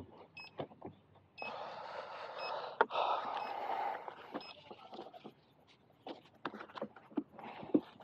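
Velcro strip being peeled off in two long ripping pulls, with a sharp click between them about three seconds in, followed by small handling taps and clicks.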